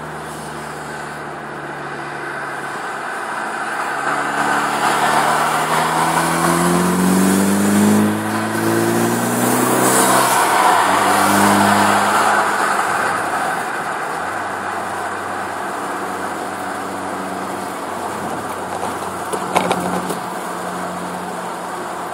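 2013 Hyundai Veloster Turbo's 1.6-litre turbocharged four-cylinder through a custom Magnaflow exhaust, heard through an open side window while the car accelerates. The engine note rises in pitch, drops at a gear change about eight seconds in, rises again, then settles into a steady cruise over road noise. A sharp click comes near the end.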